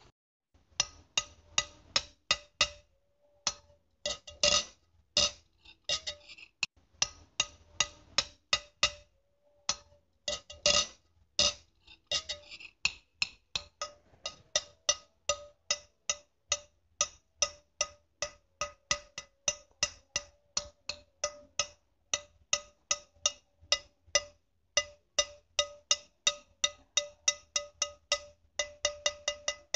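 Ceramic plates clinking: a long series of quick knocks, about three or four a second, each with a short bright ring. There are a couple of brief pauses, and the knocks come faster near the end.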